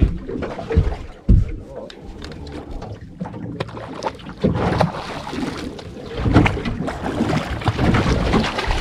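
Sounds aboard a small fishing boat on the water: a couple of sharp knocks in the first second and a half, then a busier mix of water noise and short clatters from about halfway through.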